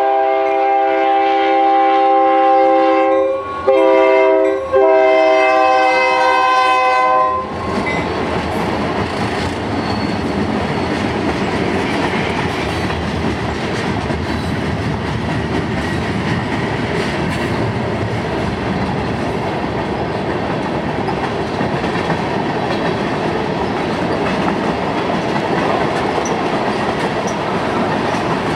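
Freight locomotive's multi-note horn sounding for a grade crossing, a long blast, a short one and a long one, for about the first seven seconds. Then the passing freight cars rumble by with wheels clacking over the rail joints.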